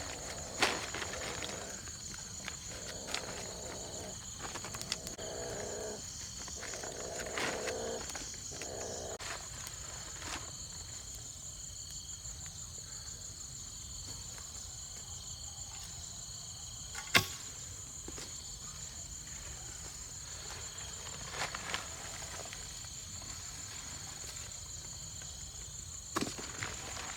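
Insects chirring in a steady high-pitched chorus, with a few sharp clicks or knocks, the loudest one about two-thirds of the way through.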